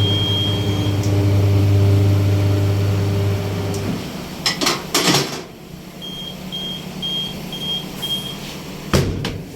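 Electric tyre-changing machine motor running with a steady low hum, stopping about four seconds in. Two short sharp noisy bursts follow, then a run of five short high beeps and a sharp clack near the end.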